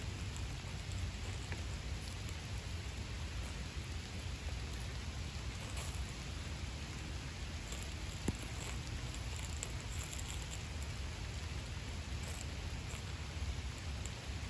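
Steady rain falling and pattering on wet surfaces, over a low rumble, with one sharp click about eight seconds in.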